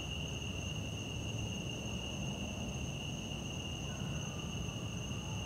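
Steady, high-pitched chorus of crickets calling at night, over a low rumble.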